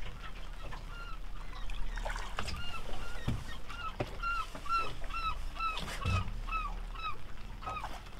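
A goose honking over and over, short rising-and-falling honks that come about two a second in the middle stretch. A few sharp knocks sound between the honks, the loudest about six seconds in.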